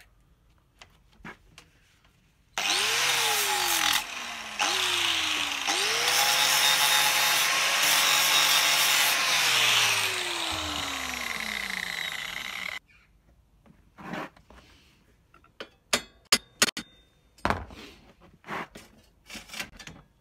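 An electric power tool switched on in two short bursts and then held on for about six seconds, its motor climbing in pitch as it spins up and sliding down as it coasts to a stop, under a loud harsh grinding noise. After it stops come scattered sharp knocks and clinks of metal parts being handled.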